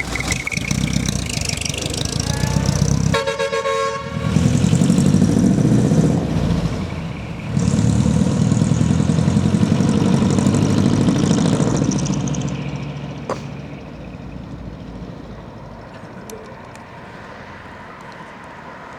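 Decorated Japanese dekotora trucks leaving: an air horn sounds once briefly about three seconds in, then a diesel truck engine runs loud under acceleration in two long pulls as the truck drives off, fading away after about twelve seconds.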